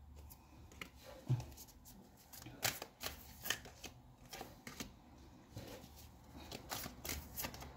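Tarot cards being handled and laid down on a table: soft, irregular flicks, slides and taps of card stock, a few sharper ones among them.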